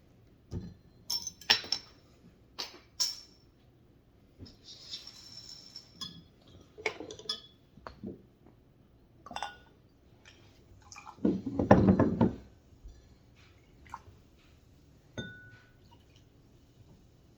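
Glass soda bottle and cups being handled: scattered clinks and light knocks, a short hiss about five seconds in, and a louder dull rustle lasting about a second near the twelve-second mark.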